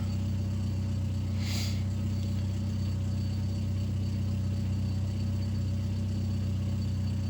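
Car engine idling steadily, holding about 900 rpm where it should idle at about 800: the slightly high idle behind a P0507 fault code. A brief hiss about a second and a half in.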